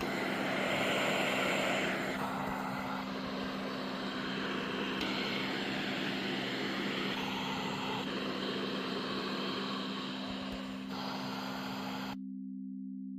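Philips CoughAssist E70 blower running, a rush of air that shifts in strength every few seconds and cuts off suddenly near the end, over a steady low hum.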